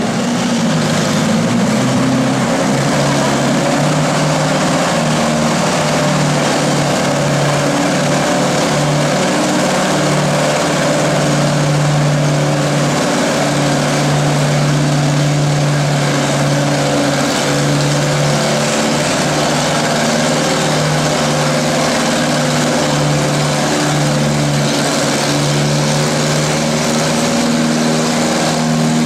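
Antique tractor engine running steadily at an even speed, without revving up.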